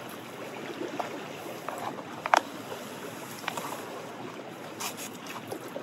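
A few light clicks and taps of a spoon in a food pot, the loudest about two and a half seconds in, over a steady outdoor rushing noise.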